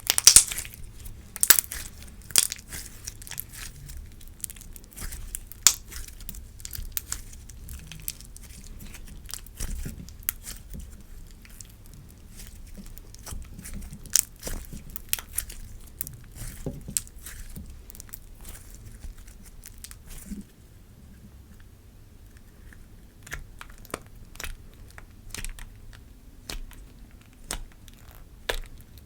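Clear slime being played with by hand, making a run of irregular sharp little crackles and pops as it is stretched, folded and pressed. The crackles come thickly at first and thin out about two-thirds of the way through.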